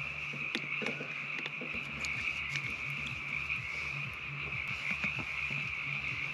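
A chorus of frogs calling steadily, a continuous high trilling, with a few light clinks of a metal spoon against an open can.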